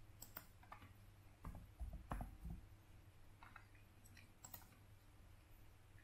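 Faint, scattered clicks of a laptop being operated, with a few soft low knocks about two seconds in.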